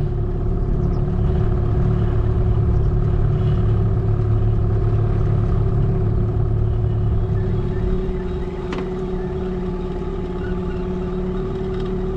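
Small boat's outboard motor running steadily at low trolling speed: a constant hum with a steady tone over a low rumble, a little quieter from about eight seconds in.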